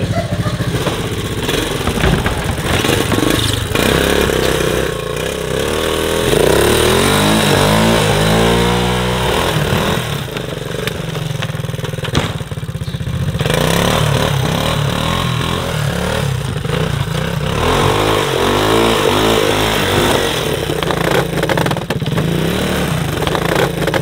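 Small engine of a vintage mini snowmobile running and being revved, its pitch rising and falling several times.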